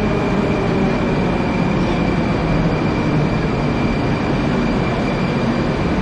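Metro train pulling into the station, a steady rumble of wheels on rails with a high steady whine that fades about halfway through.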